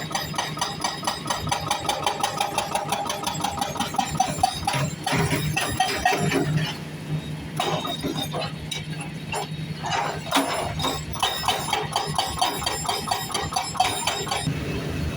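Construction-site machinery: an engine running steadily under fast, regular mechanical knocking that stops for a few seconds midway and then resumes.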